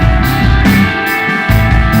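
Live psychedelic desert rock: electric guitar holding sustained tones over bass and drums, with cymbals struck about twice a second. The bass drops out briefly about a second in, then comes back.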